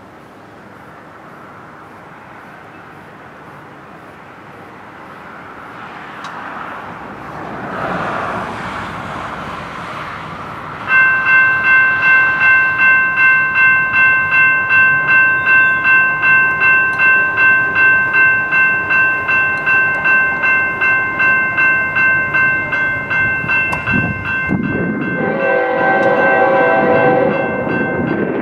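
An approaching freight train's diesel locomotives grow louder. About a third of the way in, the lead locomotive, a GE ES44AC, sounds its multi-chime air horn in a long, loud blast that pulses about twice a second. The horn breaks off briefly near the end and then sounds again.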